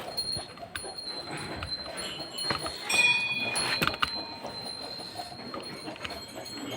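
Metallic ringing like small bells or a chime, a few ringing tones that are loudest about three seconds in.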